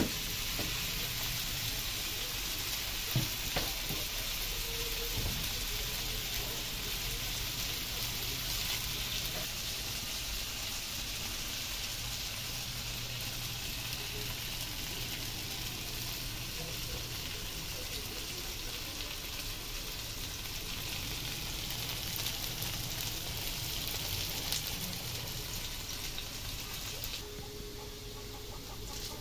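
Strips of sweet potato frying in oil in a steel wok, a steady sizzle, with a couple of knocks of the metal spatula against the wok a few seconds in. The sizzle drops off near the end.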